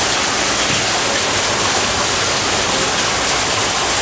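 Running water in an aquarium's freshwater stream exhibit, a steady, even rush with no breaks.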